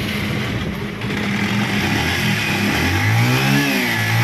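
Bajaj Pulsar 125 BS6 single-cylinder engine running after an electric start: it idles steadily, then is revved several times from about halfway in, the pitch rising and falling. It runs with its normal sound again, the clutch-side noise gone after the repair.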